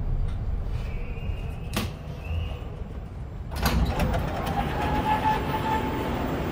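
Moskva-2020 metro train standing at a platform: a low steady hum, a sharp click a little under two seconds in, then the sliding doors open about three and a half seconds in and the noise swells.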